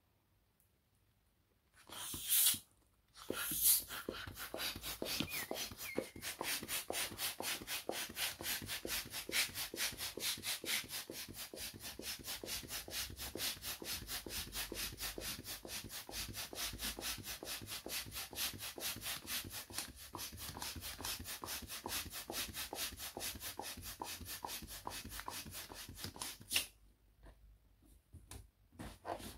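Small handheld plunger balloon pump worked in fast, even strokes, a rush of air several times a second, blowing up a latex balloon. The pumping starts about two seconds in and stops a few seconds before the end, leaving faint rubbery handling of the balloon.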